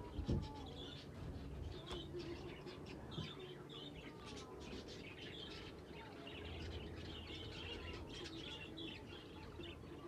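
A flock of exhibition budgerigars chirping and chattering, with many short overlapping warbled calls.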